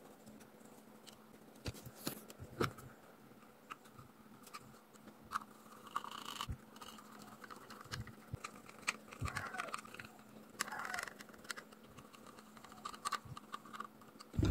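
Small screws being driven by hand with a precision screwdriver into a plastic model housing: faint, irregular clicks and scrapes of the screwdriver tip and screws against the plastic, over a faint steady hum.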